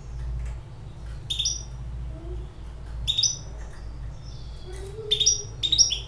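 A young caged hybrid finch calling in short, sharp chirps. It gives single chirps about a second and three seconds in, then a quicker run of several notes near the end.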